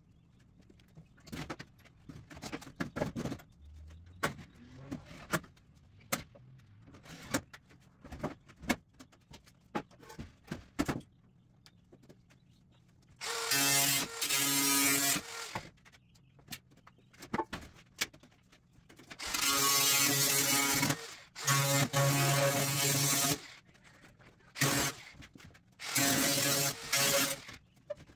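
Cordless power driver running in several short bursts of one to two seconds each in the second half, driving screws through used sheet-metal panels into the wooden frame. Before that come scattered knocks and clanks of the metal sheets being handled and positioned.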